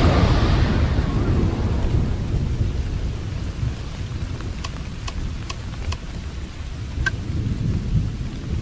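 Rolling thunder: a low rumble that fades over the first few seconds and then keeps rumbling unevenly, with a few faint ticks about halfway through.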